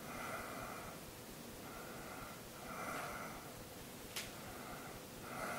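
A man's steady, rhythmic breathing, each breath a soft hiss, as he lies deeply relaxed under hypnosis. There is one sharp click a little after four seconds in.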